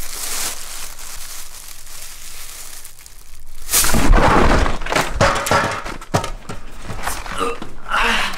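Plastic bags crinkling and rustling as a hand rummages through them. About four seconds in, a sudden loud clatter of thumps and knocks breaks in as the camera is jerked away.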